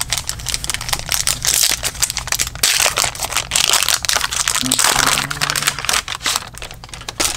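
Foil trading-card pack wrapper crinkling and crackling as it is torn open and handled, with irregular small clicks of cardboard cards; busiest in the middle of the stretch.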